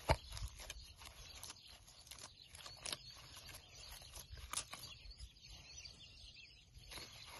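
Hand in a disposable plastic glove kneading soft bread dough in a plastic bowl: irregular sticky squelches and crinkles, with one sharper click right at the start.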